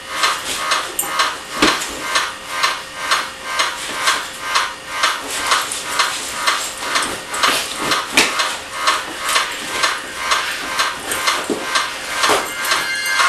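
Dance music playing over a speaker, thin with little bass, driven by a fast, steady clicking beat. A few heavier thumps land about two, eight and twelve seconds in.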